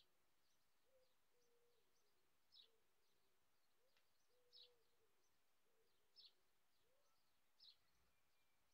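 Faint distant birdsong: one bird repeats a short high chirp about every one and a half to two seconds, with fainter chirps between, and a lower drawn-out call sounds underneath over a quiet background hiss.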